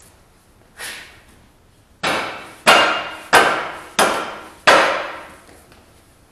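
Rubber mallet striking the front track carriage of a tracked slope mower, five blows about two-thirds of a second apart, each ringing out briefly: knocking the stuck carriage forward to free it.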